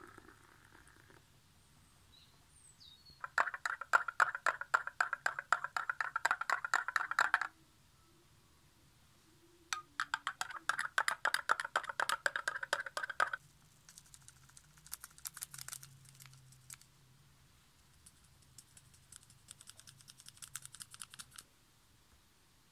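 A spoon stirring briskly in a small glass, clinking rapidly against its sides in two bursts of several seconds each. Pouring water trails off about a second in, and fainter, lighter clicking follows in the second half.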